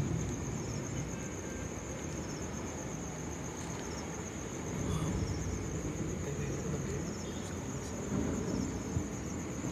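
Crickets trilling, a steady high continuous note, over a low rustling rumble of handling noise.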